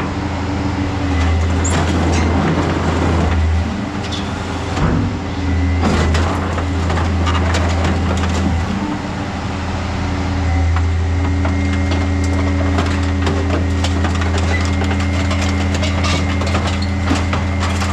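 Hydraulic scrap metal shear running through a cutting cycle. Its engine and hydraulic pump hum steadily, swelling in several stretches as it comes under load, with scattered knocks and clanks of metal.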